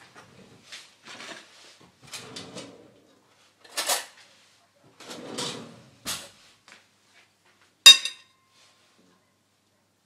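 A ceramic bowl shifted about on a glass cooktop, with several soft scrapes and knocks. Near the end a metal fork is set into the bowl with one sharp clink that rings briefly.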